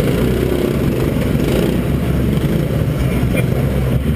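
Mini Sprint racing car's engine running loud and steady, heard from inside the car.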